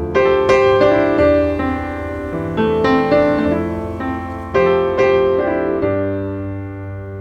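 Background piano music: gentle chords struck every second or so, each note ringing and fading before the next.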